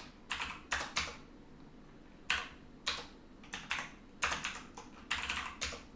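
Typing on a computer keyboard: irregular single keystrokes and short runs of keys, with a pause of about a second after the first second.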